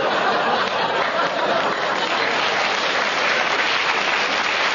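Audience applauding steadily, with some laughter mixed in.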